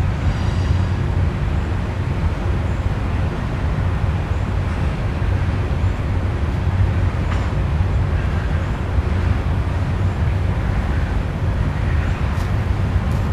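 Oxy-acetylene welding torch flame burning with a steady low rumble and hiss as it is worked over thin mild steel to keep a molten pool going.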